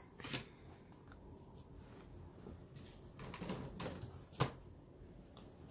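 Faint handling of a clear plastic stamp-set case, with light rustling and one sharp tap about four and a half seconds in.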